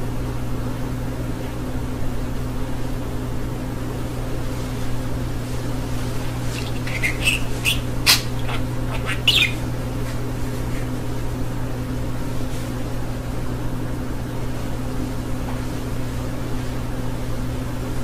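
A budgerigar gives a few short, high chirps around the middle, over a steady low hum.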